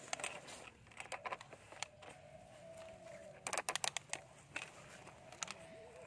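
Plastic toy excavator and toy truck pushed through sand by hand: gritty scraping and crunching of sand with small plastic clicks and knocks, and a quick run of sharper clicks about three and a half seconds in.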